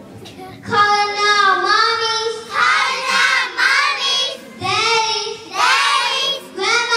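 Group of young children singing a tune together in unison, in sung phrases of one to two seconds with short breaks between them, starting shortly after a brief lull.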